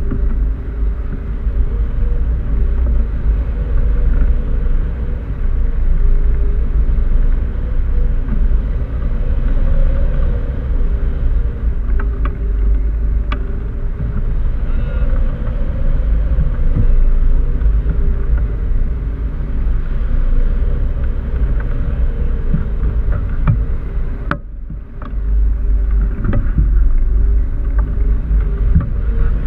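Wind buffeting the microphone of a camera mounted on a hang glider in free flight: a loud, steady low rumble that eases briefly about 25 seconds in, with a few faint ticks.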